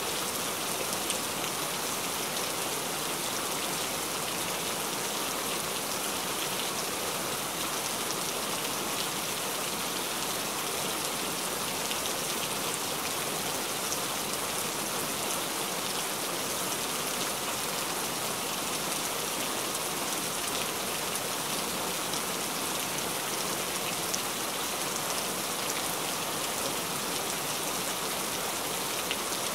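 Steady rain: a dense, even hiss of many small drops with fine scattered ticks, unchanging throughout.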